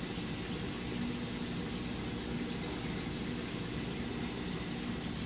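Steady low hum under an even hiss, unchanging throughout: a saltwater aquarium's pumps and water circulation running.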